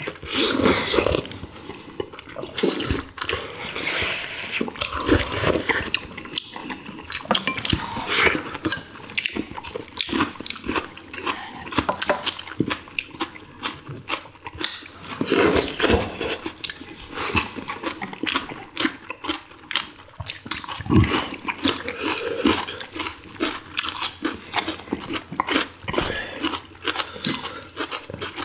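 Close-miked eating sounds: several people slurping broth and chewing boiled chicken and green onions, with many short wet clicks and mouth noises.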